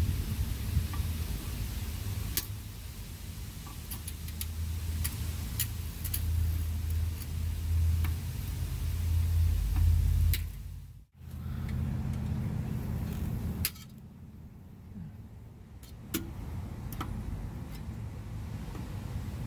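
A car engine idling, a low steady hum, with scattered light metallic clicks as pliers twist tie wire around a muffler patch. The hum cuts out for a moment about halfway through and is quieter after that.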